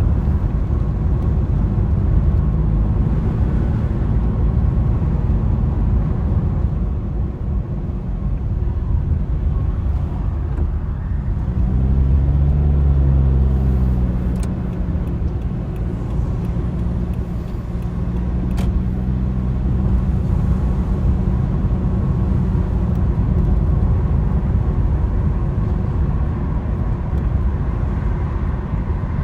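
A car being driven: a steady low rumble of engine and road noise. About twelve seconds in the engine note shifts and then holds a steady hum for several seconds.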